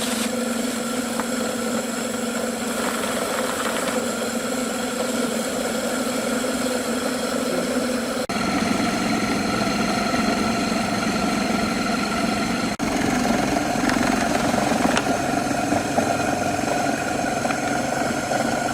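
Homemade feed grinder driven by a recycled washing machine motor, running steadily with a constant hum. Its tone shifts abruptly twice.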